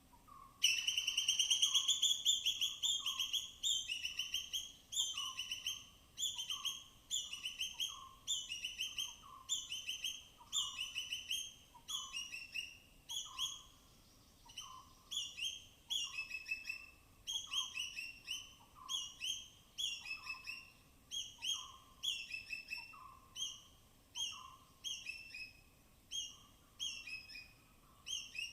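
Forest squirrel giving a long series of sharp, high-pitched alarm chirps, one to two a second, starting abruptly about half a second in. Under it a lower call repeats about once a second.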